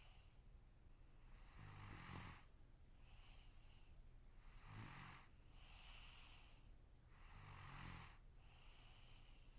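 A sleeping person snoring faintly, a rasping snore on each breath about every three seconds, three times, each followed by a softer breathy exhale.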